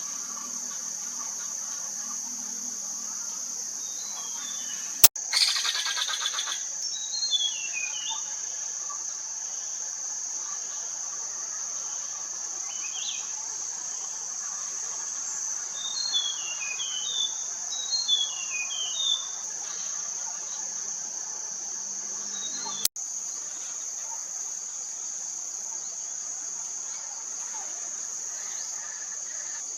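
Steady, high-pitched drone of insects calling, with a bird's short runs of quick chirps stepping down in pitch several times. A sharp click comes about five seconds in, followed by a second of fast rattling, and another click comes later.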